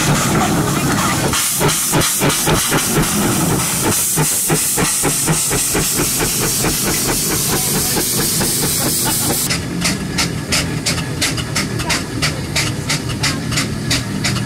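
Steam traction engine hissing loudly, with steam escaping low down by the cylinders, and a regular beat of its working. About two-thirds of the way in the hiss cuts off suddenly, leaving a steady chuff-like beat of two to three strokes a second.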